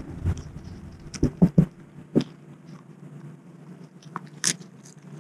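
Wallabies biting and chewing snacks right at the microphone, with a quick run of sharp crunches between about one and two and a half seconds in and another near the end, over a steady low hum.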